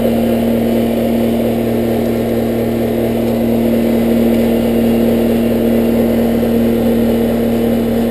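Central air conditioner's outdoor condensing unit running steadily, compressor and condenser fan giving a constant deep hum. It is running again on a newly replaced capacitor, the part that had failed.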